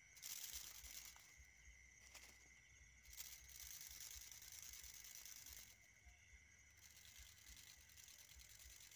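Faint rustling of dry grass and leaves that comes and goes in several spells, over a steady high insect trill.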